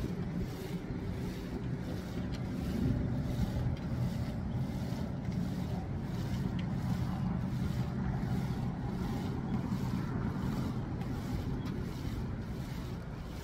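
Wind buffeting the microphone: a steady low rumble with no other distinct sound.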